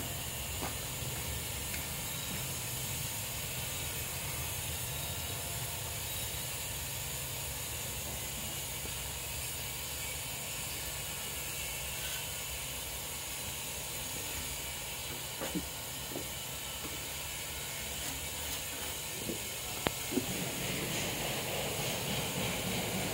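Steady hiss and low rumble of background noise, with a few faint knocks in the latter half.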